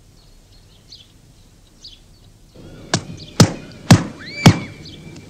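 A carpet hung on a rack being beaten with a carpet beater: four loud smacks about half a second apart, starting about three seconds in. Faint bird chirps before them.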